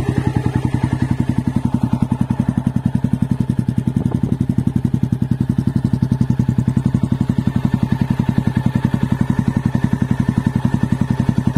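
Honda XL 600R's air-cooled single-cylinder four-stroke engine idling steadily through a Laser Produro aftermarket silencer, its exhaust beat even and regular with no change in speed.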